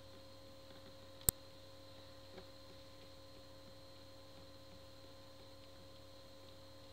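Steady low electrical hum with one sharp click about a second in and a much fainter click a second later.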